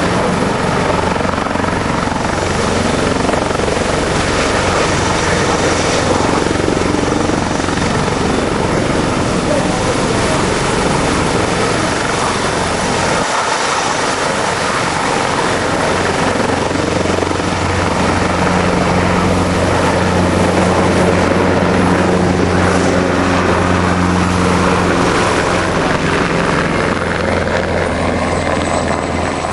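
Helicopter running loudly and steadily, the chop of its rotor blades and whine of its turbine filling the air; a low drone strengthens for several seconds past the middle, then eases.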